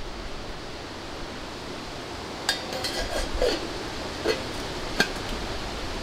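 A few light metallic clinks and knocks from gear being handled, the first one ringing briefly, then two single clicks, over a steady hiss of outdoor background noise.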